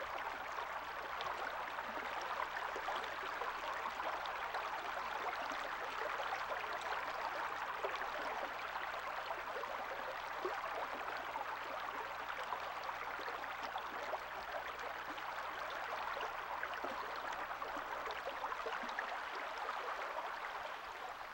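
Steady rushing hiss of running water, like a stream, with a short high chirp right at the end.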